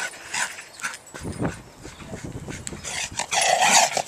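A dog's breathing and snuffling close to the microphone as it runs carrying a frisbee in its mouth, loudest about three seconds in.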